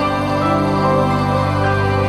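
Background music: slow held notes over a steady bass note.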